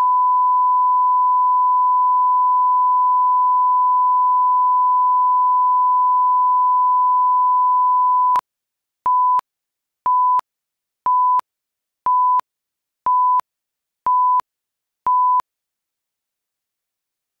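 Steady line-up test tone played with colour bars, cutting off about eight seconds in. It is followed by seven short beeps at the same pitch, about one a second, from a countdown leader.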